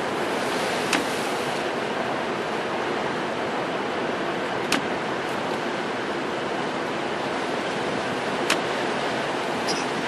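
Heavy storm surf breaking against a cement seawall and boulders, heard from inside a truck cab as a steady rush of crashing waves and wind. Three or four sharp ticks stand out, about a second in, near the middle and near the end.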